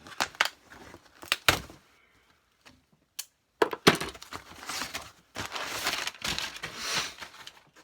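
Packaging being handled: a few sharp cracks and clicks, then, about halfway through, several seconds of crinkling, rustling wrap and cardboard.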